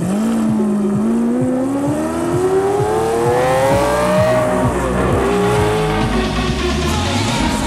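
Lamborghini Aventador's V12 engine accelerating hard, its revs climbing steadily for about four seconds, then dropping at an upshift and pulling on more evenly as it fades.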